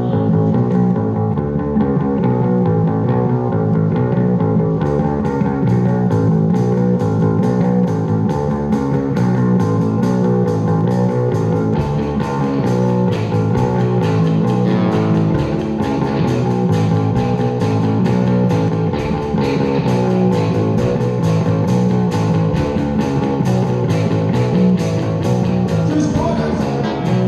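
Live rock band playing loud amplified electric guitars. About five seconds in, drums and cymbals come in with a steady beat.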